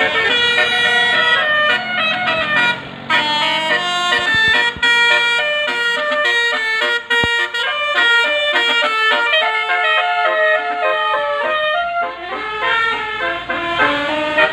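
Indonesian bus 'telolet basuri' musical horn playing a fast tune of short, stepping notes.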